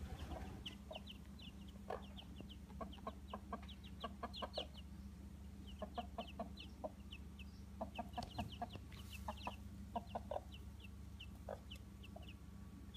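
Chickens clucking, with many short, high peeps running on throughout and scattered lower clucks, over a steady low hum.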